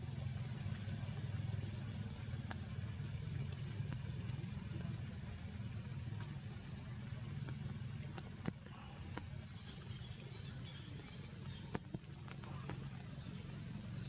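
Rain falling steadily, an even patter with scattered small ticks over a constant low rumble, with two sharp clicks in the second half.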